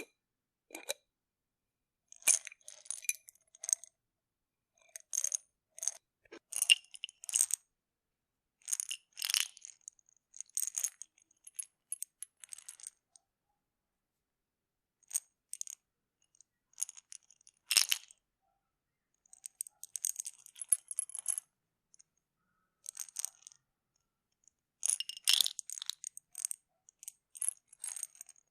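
Bottle of pills being handled, opened and closed: pills rattling and clinking inside and the cap clicking, in short bursts of sharp clicks every second or two with silent gaps between.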